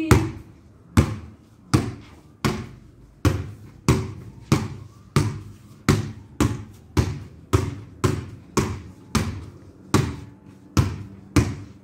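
Basketball dribbled on a ceramic-tiled floor while moving about: a steady run of bounces, about three every two seconds, each hit followed by a short ringing of the ball.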